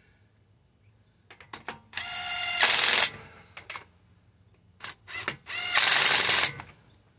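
Cordless Ridgid impact wrench running lug nuts onto a car wheel twice: each time the motor spins up with a whine, then switches to a short, loud stretch of rapid hammering as the nut seats. Light metallic clicks of the socket and lug nuts come between the runs.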